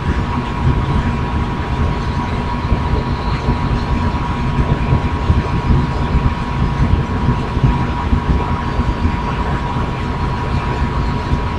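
Modified model helicopter running steadily: a constant high motor whine over dense low rumbling noise from the spinning rotor.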